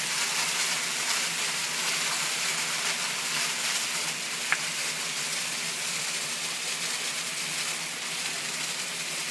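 Small hail coming down hard, a dense steady patter on the ground. One sharp click stands out about four and a half seconds in.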